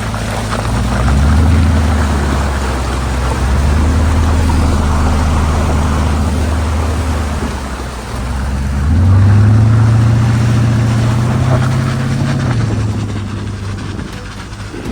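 An SUV driving, with a steady engine drone and continuous road noise. The engine note steps up about nine seconds in and settles back down a few seconds later.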